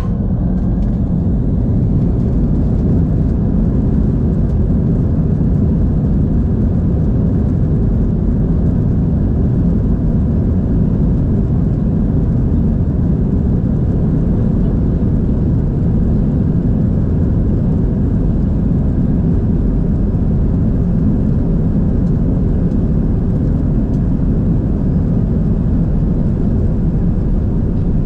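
Steady low rumble inside an airliner cabin as the jet taxis on the ground: engine hum and rolling noise, with a faint steady high whine above it.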